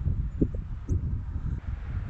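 Gusty wind buffeting the microphone as a low, steady rumble, with a couple of faint short knocks about half a second in.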